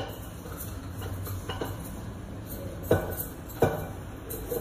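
A metal utensil stirring sliced onions and green chillies in a stainless steel pan, with a few sharp clinks of metal on metal at irregular intervals.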